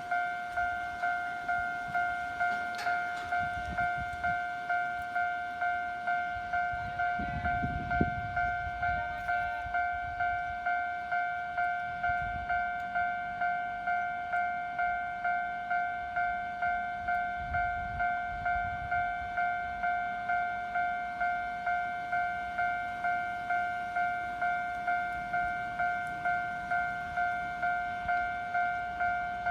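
Japanese railway level-crossing alarm ringing its electronic 'kan-kan' bell, a steady two-tone strike about one and a half times a second, warning that a train is approaching. A low rumble rises and fades around eight seconds in.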